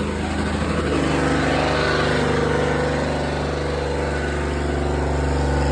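Farm tractor's diesel engine running steadily, at an even pitch.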